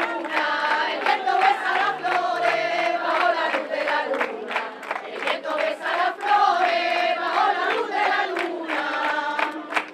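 A crowd of many voices singing together, holding long sung notes, with hand clapping throughout.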